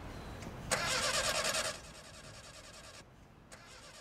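A car's starter motor cranking the engine in a loud burst about a second long, then more weakly, without the engine starting.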